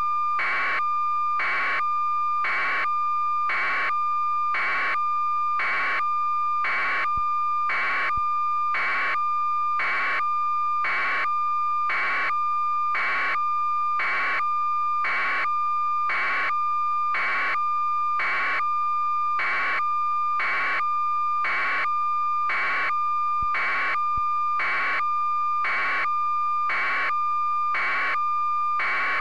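Electronic beeping: a steady high tone under evenly spaced beeps, about three every two seconds, unchanging throughout.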